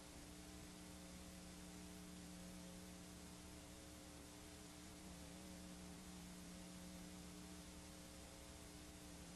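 Near silence: a faint, steady electrical hum of several low tones over a light hiss, with no programme sound. This is the blank end of a videotape playing back as snow.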